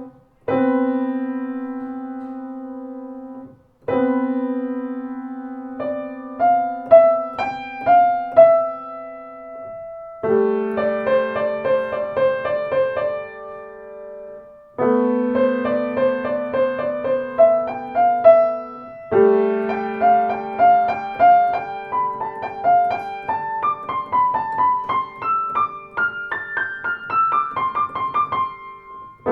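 Solo piano music played on a Blüthner grand piano: sustained chords that ring and die away, with melodic runs over them and fresh chords struck every few seconds.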